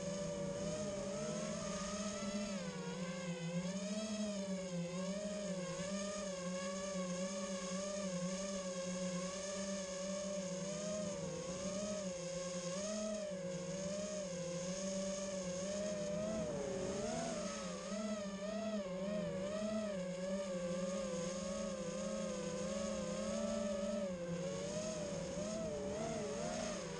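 The electric motors and propellers of an FPV quadcopter whining in flight, the pitch wavering up and down continually with the throttle.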